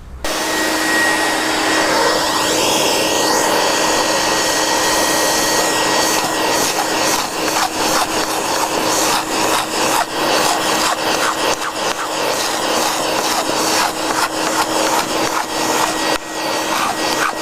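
Vacuum cleaner running steadily with a scraper hooked up to it, which scrapes old antifouling paint off a yacht's hull and sucks up the paint dust as it goes. Rough, irregular scraping strokes come thick and fast from about six seconds in.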